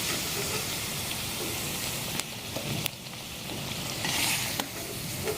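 Potato kachoris deep-frying in hot oil, a steady sizzle with the gas flame just turned off. Two faint clicks come a little after two and three seconds in.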